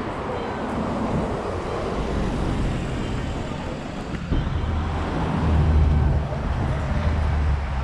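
Street traffic noise with a motor vehicle's low engine hum close by, growing louder about four seconds in and loudest around six seconds.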